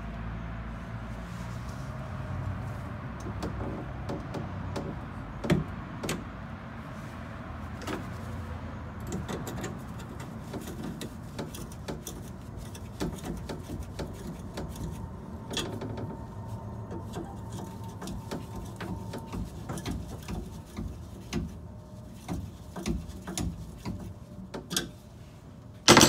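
Scattered small metallic clicks and taps as a hand tool works the clamp bolt on a chrome steering column's mount, with a sharper knock about five seconds in and a loud one at the very end.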